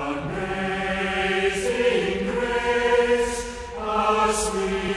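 A choir singing slow, long-held chords that move to a new chord every second or two.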